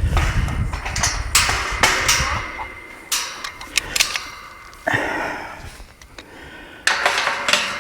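Metal farm gate and its loosened hinge hardware clanking and scraping in a run of sudden bursts as the gate is shifted.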